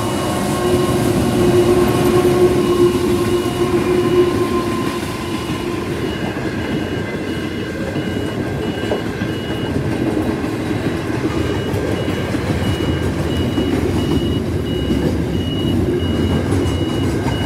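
Pacific National NR-class diesel-electric locomotive (NR49) passing close with its engine droning. Container wagons follow, rolling past with a steady wheel rumble and clatter, while the level-crossing bell dings at an even pace.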